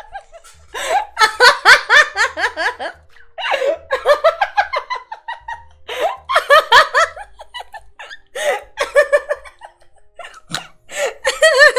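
A woman laughing hard in several fits of giggles, with short pauses for breath between them.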